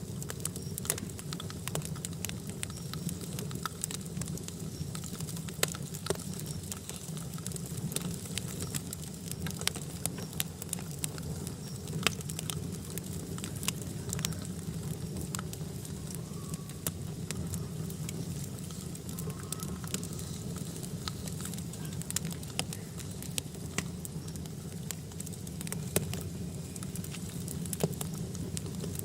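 Campfire of burning firewood crackling, with sharp irregular pops over a steady low rumble.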